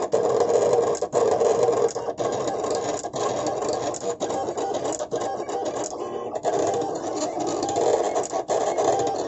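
Silhouette Cameo vinyl cutter running a contour cut on sticker paper: its motors whir as the blade carriage moves and the rollers feed the mat back and forth, with brief breaks about once a second.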